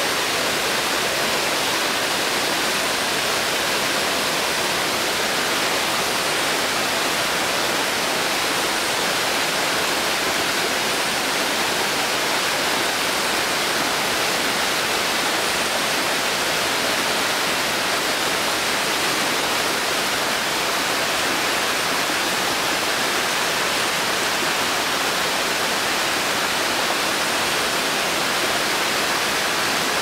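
Small waterfall dropping over rocks into a pool: a steady, even rush of falling water.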